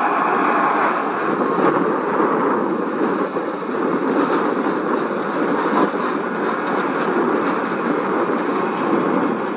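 Bombardier CL-600 Challenger business jet's twin turbofan engines running: a steady rushing jet noise with no clear tone.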